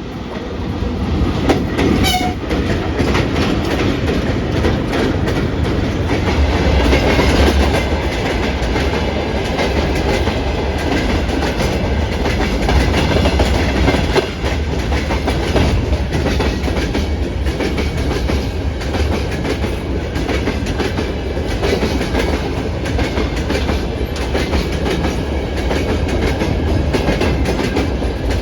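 Freight train hauled by a VL80S electric locomotive passing close by, getting louder over the first second. The wheels clatter steadily over the rail joints with a deep rumble underneath, and a brief high sound comes about two seconds in.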